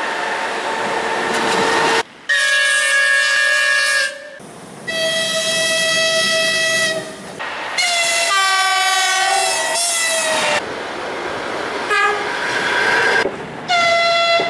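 A series of electric locomotive horn blasts spliced together with abrupt cuts, each at a different pitch, over the rush of passing trains. One long blast near the middle drops in pitch toward its end.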